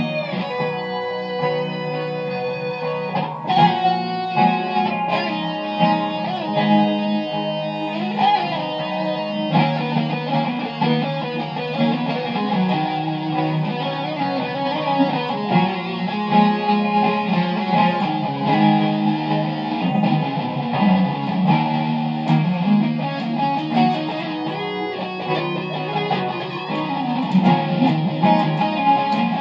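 Electric guitar improvising, picking single-note lines and chords over an Em, C, Bm7, Am chord progression.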